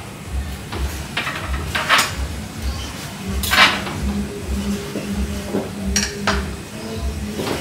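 A cooking utensil clinking and knocking against a pot as the soup is stirred: a handful of sharp strikes spread through, the loudest about halfway.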